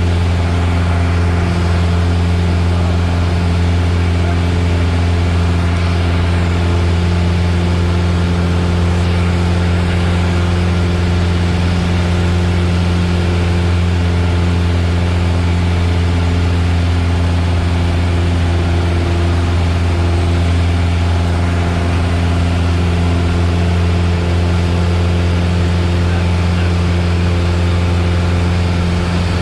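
Piper Warrior's four-cylinder Lycoming O-320 engine and propeller droning steadily, heard inside the light aircraft's cabin. The low hum and the tones above it stay at a constant level, as in steady flight.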